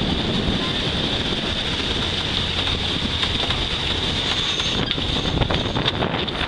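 Wind buffeting the microphone over the steady rush of water past the hull of a sailboat moving fast, with a few short clicks near the end.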